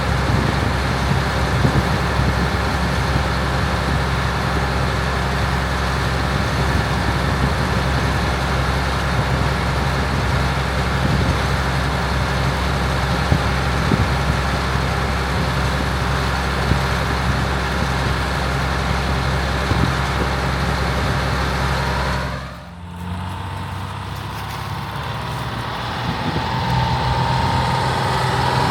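International Harvester 1460 combine running steadily while harvesting corn: a diesel engine drone with the combine's machinery. About two-thirds of the way through the sound drops out abruptly, and a quieter steady machine sound follows, growing louder with a rising whine near the end.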